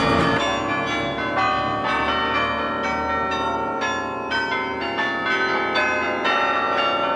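Carillon bells played by hand from the baton keyboard: a tune of single struck notes, about two a second, each bell ringing on under the next.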